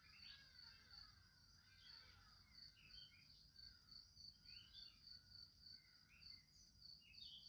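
Near silence with faint outdoor ambience: a cricket chirping in a steady, evenly pulsed high note, and scattered short bird chirps.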